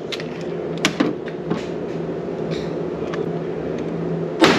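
A single shot from a Taurus TX22 .22 pistol about four and a half seconds in, the loudest sound, ringing briefly off the walls of the range. Before it come a few fainter sharp knocks over a steady background hum.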